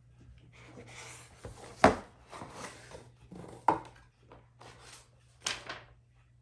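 A webcam's cardboard box being handled and opened: rubbing and scraping of the packaging, with three sharp knocks or snaps, the loudest about two seconds in.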